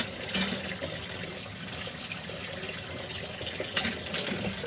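Kitchen tap running into a sink while things are rinsed under it, with a couple of sharp knocks.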